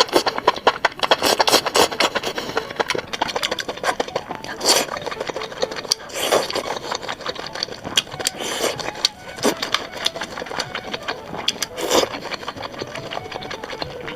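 Close-miked mukbang eating sounds: chewing, with a dense run of small clicks and crackles and a few louder noisy swells every couple of seconds.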